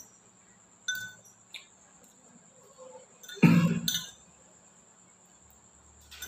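A metal spoon clinking lightly against a bowl while eating noodles, with a louder short throat noise from the eater about halfway through.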